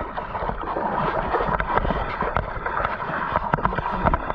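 Sea water sloshing and splashing around a stand-up paddleboard in swell, with irregular short splashes and wind noise on the microphone.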